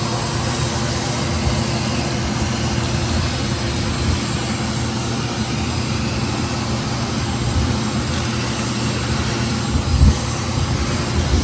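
Vacuum cleaner running steadily, a continuous rushing whoosh over a low motor hum, briefly louder about ten seconds in.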